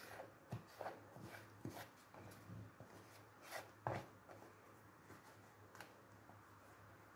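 Faint scraping of a silicone spatula against the inside of a plastic bowl, pushing thick whipped chocolate ice cream mixture out into a plastic container. A handful of soft strokes and light knocks come in the first four seconds, the loudest just before four seconds in, then it goes almost quiet.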